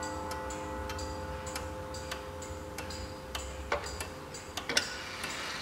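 Junghans wall clock movement ticking steadily, a little under two ticks a second, while the ringing of its last strike fades away over the first few seconds. A couple of sharper clicks come near the end as the minute hand is pushed by hand toward the hour.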